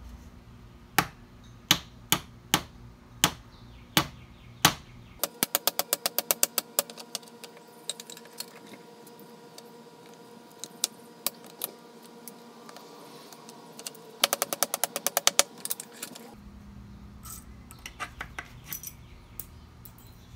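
Sharp metallic clicks and snaps of end-cutting pliers gripping and pulling old finish nails out of painted wood trim. Single clicks come about every half second at first, then fast runs of clicks twice, with scattered clicks near the end.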